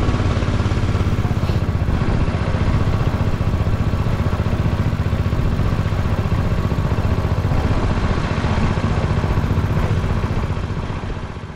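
Small wooden river boat's engine running steadily at cruising speed, with an even, rapid low pulse; the engine sound dies down near the end as the boat eases off.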